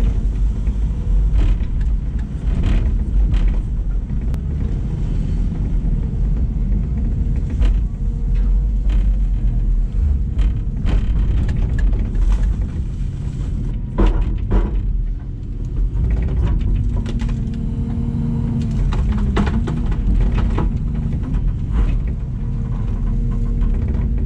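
LiuGong 922E excavator's Cummins diesel engine running under load, with scattered clanks and knocks from the machine working. The engine note steps up to a higher, steadier tone about two thirds of the way through.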